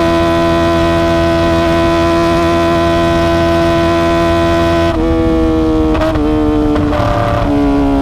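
Kawasaki ZX-25R's 250 cc inline-four through an Akrapovic exhaust, held at steady high revs for about five seconds, then dropping in pitch in a few quick steps as the rider shifts up through the gears.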